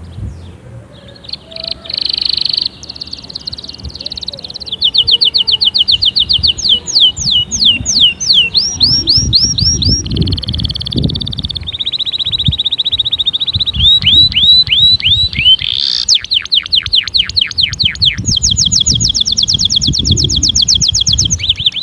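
Domestic canary singing a long, loud song of rapid trills: quick runs of repeated high notes, some sweeping up and some down, switching to a new trill every second or two, with a low rumble underneath.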